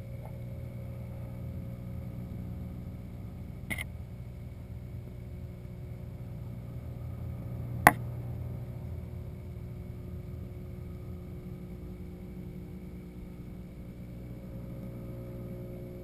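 Steady low hum of a saltwater aquarium's water pumps heard underwater, with faint steady tones above it. Two sharp clicks break it, a small one about four seconds in and a much louder one about eight seconds in.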